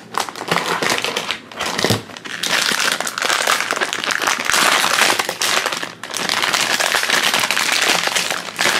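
Crinkly blind-bag packaging being pulled from a display box and torn open by hand, with dense crackling and rustling that briefly eases about six seconds in before going on.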